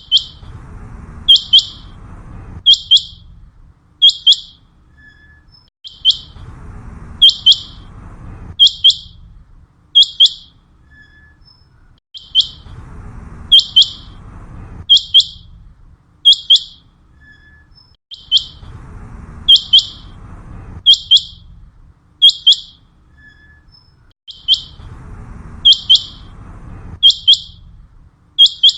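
Common quail (batair) song: short, sharp, high whistled notes in quick "pwit, pwit-wit" phrases, repeated over and over in a steady cycle about every six seconds. A faint low rumble runs under part of each cycle.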